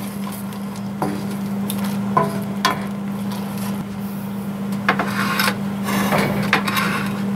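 Wooden spoon and metal spoon stirring and scraping thick cheese sauce in a cast iron skillet, with several short knocks of the utensils against the pan, over a steady low hum.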